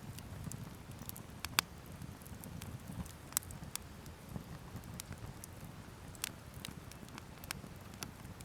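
Wood campfire crackling, with sharp pops and snaps at irregular moments over a low, steady flutter of burning; the loudest pop comes about a second and a half in.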